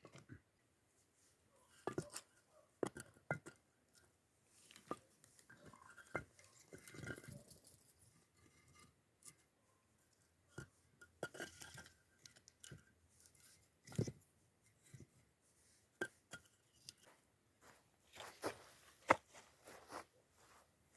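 Irregular clicks, knocks and crunching, with a few sharper knocks standing out and stretches of soft rustling between them: small objects being handled.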